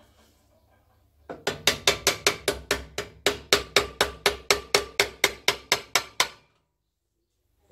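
Small hammer tapping quickly and repeatedly on the end casing (bearing support) of a Sealey air compressor's 240 V electric motor, about five light strikes a second for some five seconds, then stopping. The taps are meant to work the end piece loose from the motor body.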